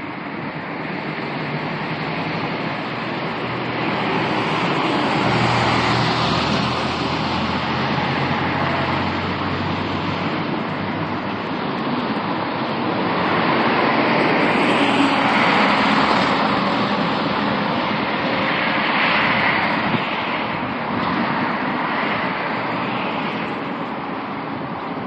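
Road traffic noise: vehicles passing on a city street, the noise swelling and fading twice.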